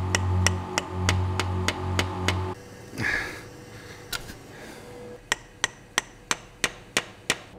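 A soft-faced mallet gives a run of light, sharp taps, about four a second, to a tool on the valve of a BMW M70 V12 cylinder head, pressing a new valve stem seal into place. After a pause of a few seconds comes a second run of seven taps. Under the first run there is a steady hum with a pulsing low note, which stops about two and a half seconds in.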